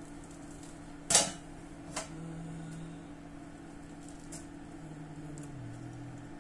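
Handling clatter at a stainless ultrasonic cleaning bath as its lid and wire basket are moved: one sharp clack about a second in and a lighter knock a second later, over a steady low hum.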